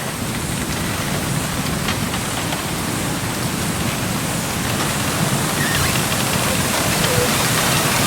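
Wind blowing through a bamboo grove, a steady dense rustling hiss of leaves and stems that grows slightly louder.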